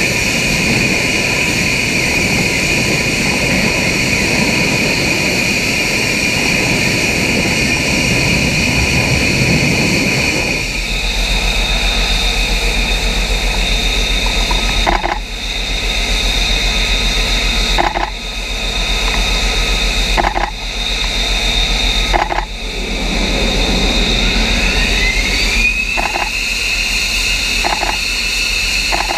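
F-35B jet engine running loud, a rushing roar with a steady high whine, while the jet hovers to land vertically. About ten seconds in the sound changes to the jet on deck in short take-off mode, with a steady low hum underneath and a few brief dips in level. Near the end the engine whine climbs in pitch.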